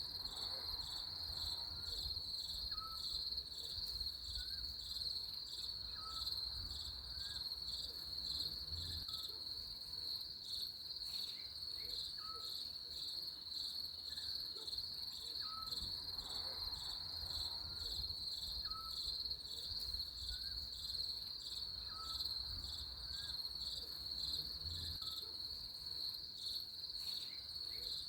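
Crickets chirping in a steady, rapidly pulsing high trill, with faint short calls repeating about once a second beneath them and a low rumble.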